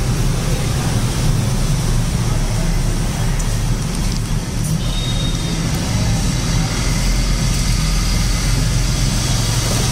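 Steady street traffic noise: a continuous low rumble of vehicle engines that does not let up.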